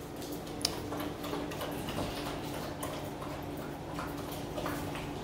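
Puppies moving about on a tile floor: light scattered clicks and ticks, with one sharper click under a second in, over a faint steady hum.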